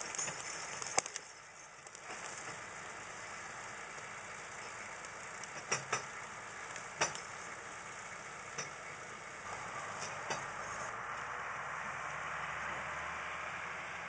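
Tractor engine running steadily, with a few short sharp cracks over it.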